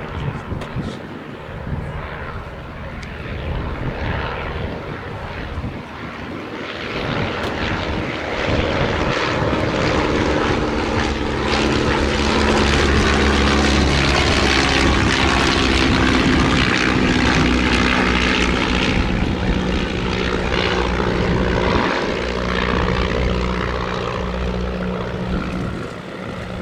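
Piston engines of two 1930s biplane trainers, a Stampe SV4 and a de Havilland Tiger Moth, droning in flight. The propeller sound swells to its loudest about 8 to 19 seconds in as the pair pass closest, then eases off.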